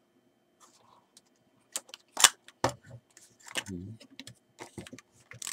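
Sharp clicks and small knocks from a partly disassembled Zenit 12SD 35 mm SLR film camera as it is handled and its parts are worked. The loudest click comes about two seconds in, a duller knock follows near four seconds, and a short rustle comes at the end.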